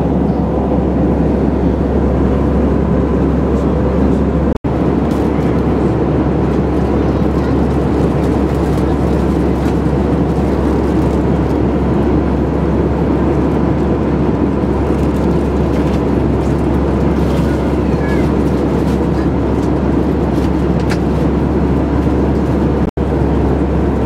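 Steady, loud cabin noise of an Airbus A321 airliner in flight: a deep, even rush of engine and airflow noise. It cuts out for an instant twice, where the recording is edited.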